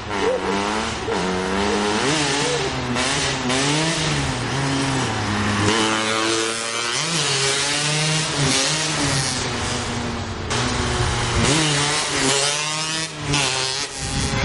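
Small 50cc two-stroke dirt bike engine, taken from a Beta RK6, revving up and down again and again as the bike rides by. It comes close and passes about halfway through, then moves off.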